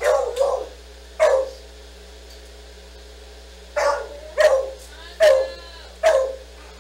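Dog barking in short, sharp barks: a quick pair at the start, another just after a second in, then four more spaced barks from about four seconds in.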